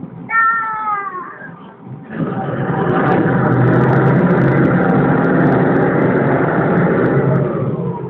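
The small river ferry's engine revving up hard at about two seconds and running loud and steady for about six seconds before easing off near the end, as the boat comes in against its landing ramp.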